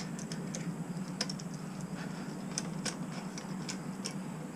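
Scattered light clicks and taps of small parts being handled and fitted onto a mini bike handlebar, over a steady low hum.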